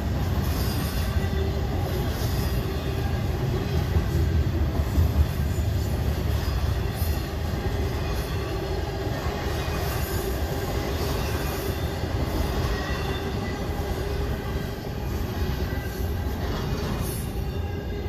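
Double-stack intermodal freight cars rolling past on the rails with a steady low rumble and faint high wheel squeal, easing off slightly near the end as the last cars go by.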